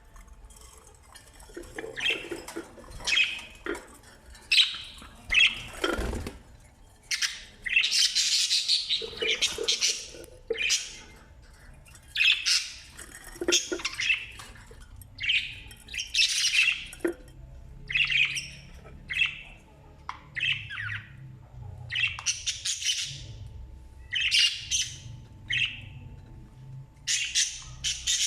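Parrots squawking: a steady run of short, harsh calls, about one a second.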